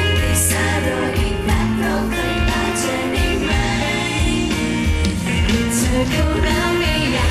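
Thai pop song performed live: a woman singing over the backing music, played loud through the stage speakers.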